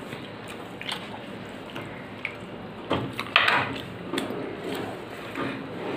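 Eating rice and curry by hand from a steel plate: wet squishing of food mixed with the fingers, and small clicks and scrapes of fingers on the metal plate, with a louder click and scrape about three seconds in.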